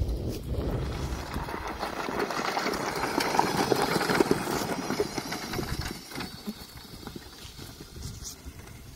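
Knobby tyres of a remote-controlled electric lawn mower conversion crunching over gravel as it drives past, loudest as it passes close by, then fading off about six seconds in as it rolls onto grass.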